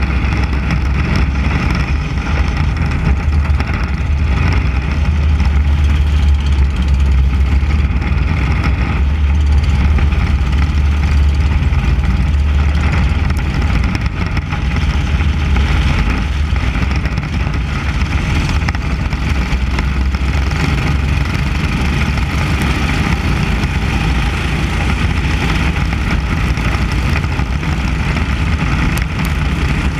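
Onboard sound of a SYRA 600 Mini Cup race car at racing speed: the car's 600cc engine runs steadily under load, with the strongest part a low rumble and no break throughout.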